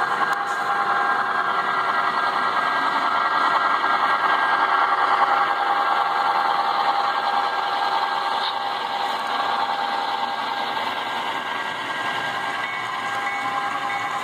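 Model railroad diesel locomotive running with its freight train: a steady mechanical drone with several held tones, easing a little in the second half.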